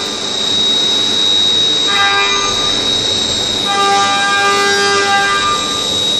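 Leadwell V-50L CNC vertical machining center milling: a steady high whine over continuous cutting noise, with clusters of lower tones that drop out and return about two seconds in and again near the middle.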